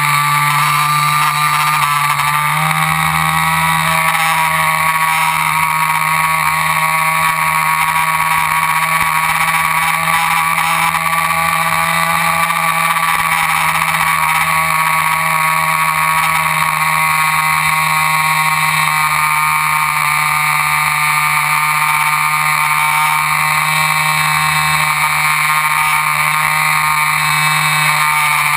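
RC airplane motor and propeller running steadily at a near-constant pitch. The pitch sags just after the start, picks back up about two and a half seconds in, and dips slightly again near the end.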